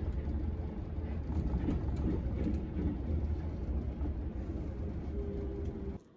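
Yurikamome rubber-tyred automated guideway train running, heard from inside the carriage as a steady low rumble. It cuts off just before the end.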